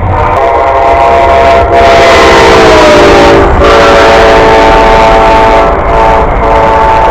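Locomotive horn sounding in long, loud blasts with short breaks, several tones held together that drop slightly in pitch about three seconds in.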